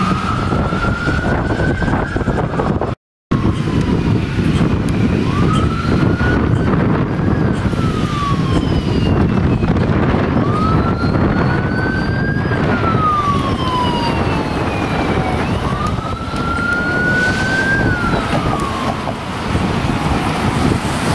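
Police siren wailing: a slow rise and fall in pitch that repeats about every five seconds, four times, over the low rumble of vehicles and traffic. The sound cuts out briefly about three seconds in.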